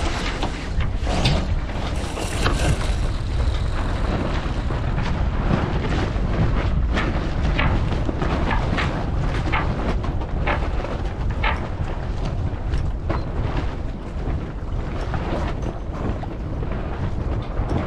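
Wind buffeting the microphone on a Beneteau First 40.7 sailboat under sail, with water rushing along the hull and short sharp sounds scattered irregularly throughout.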